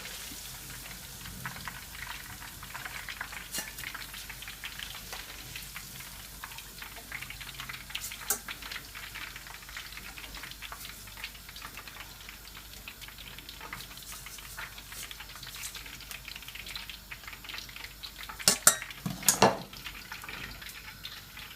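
Shredded spring greens frying in hot oil, a steady crackling sizzle. A few sharp knocks near the end, the loudest of the sounds.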